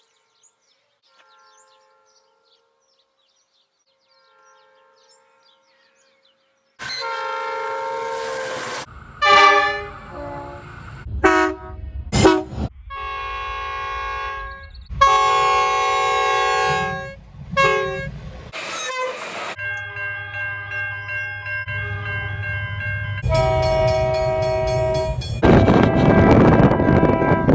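Train horn sounding a series of blasts of different lengths over the low rumble of a passing train, starting suddenly after several quiet seconds with only faint chirps. Near the end a loud rushing noise joins the horn.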